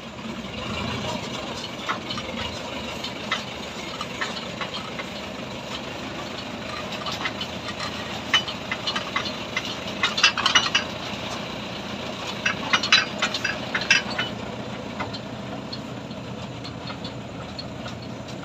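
Truck engine running steadily, with clusters of sharp rattling clicks around the middle.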